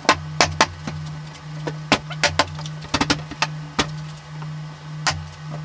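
Wooden cabinet carcass panels knocking and clunking as they are handled and pressed into place: about a dozen sharp knocks at uneven intervals, over a steady low hum.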